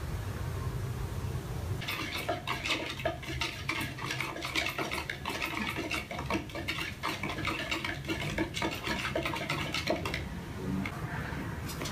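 A stick stirring liquid in a plastic tub, a fast run of scraping clicks against the tub's sides that starts about two seconds in and eases off near the end. Before it there is only a low hum.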